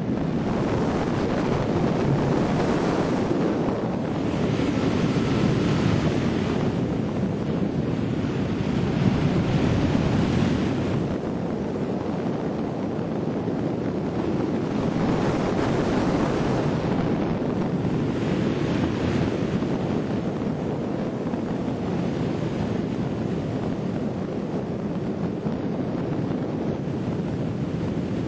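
Rushing airflow over a hang glider in flight, blowing across the wing-mounted camera's microphone: a steady wind rush that swells and eases every few seconds.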